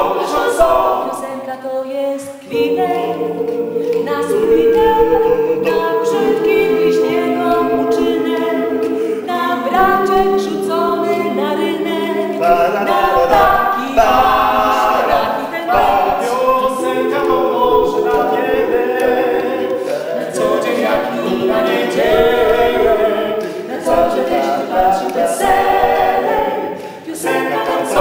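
A mixed a cappella vocal group of five voices, three women and two men, singing together in harmony without instruments.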